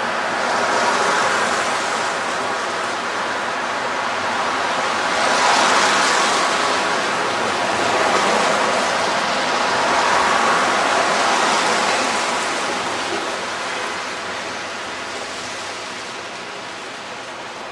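Street traffic passing close by: a rush of tyres and engines that swells several times as cars go past, then tapers off near the end.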